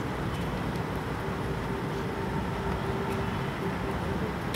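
Steady low rumbling background noise, with a faint steady hum through the middle and a sharp click at the very end.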